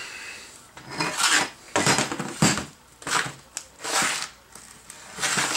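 Steel jig plates and a locking C-clamp being handled on a steel welding jig: a series of metallic clanks and scrapes, about one a second, with one sharp click about two and a half seconds in.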